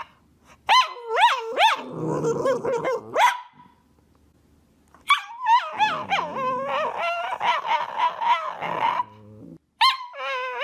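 A Cavalier King Charles Spaniel 'talking': wavering yowls and whines that slide up and down in pitch, in three runs with short pauses between.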